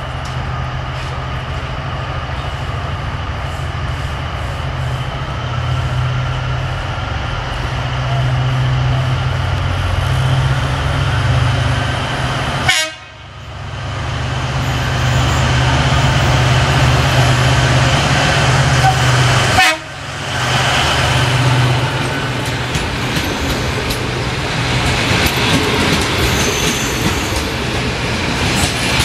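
CFR class 82 LDH diesel-hydraulic locomotive working under power as it pulls a passenger train out of the station, a steady low drone. Toward the end the passenger coaches' wheels roll along the track. The sound cuts out briefly twice midway.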